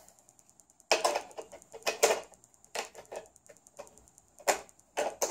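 Plastic shape blocks clacking and knocking against a toddler's plastic shape-sorter box: a string of short, irregular knocks as the shapes are pushed and rattled at the holes in the lid.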